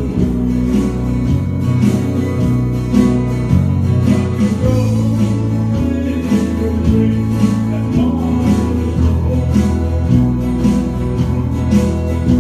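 A man singing a gospel song to guitar accompaniment, with low bass notes changing every second or so under a regular strummed beat.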